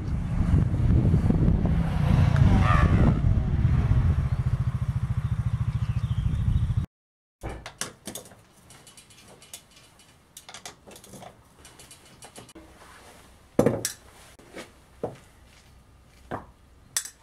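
A Honda Foreman ATV engine running under way, with wind buffeting the microphone, while the old drum brakes are tested. After a cut come quiet clicks and metallic clinks of a socket wrench on the wheel's lug nuts, and a few sharp metal knocks near the end as a hydraulic bottle jack is set under the frame.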